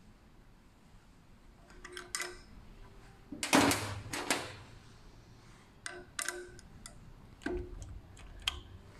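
Small metal parts and a hex key being handled while the fixed blade of an electric pruning shear is taken off: scattered clicks and taps of metal on metal, with a louder scraping clatter about three and a half seconds in.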